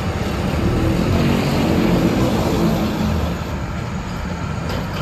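Loud, steady jet aircraft noise at an airport gate, a dense even noise strongest in the low range, swelling a little toward the middle and easing slightly after about three seconds.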